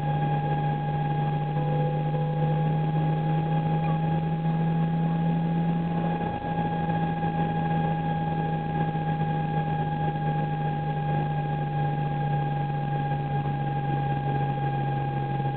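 A car's abnormal noise: a steady whine held at one pitch with fainter overtones above it, over a constant low drone, with a brief dip about six seconds in.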